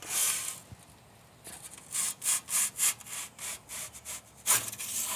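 Perforated metal pizza peel scraping over the oven's stone baking floor as it is worked in under a baking pizza: a string of short rasping strokes, about three a second around the middle, and a louder scrape near the end.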